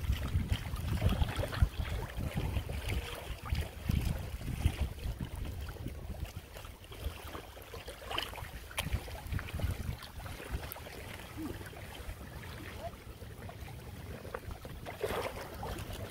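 Gusty wind buffeting the microphone, heaviest in the first few seconds, over faint water lapping around an inflatable kayak.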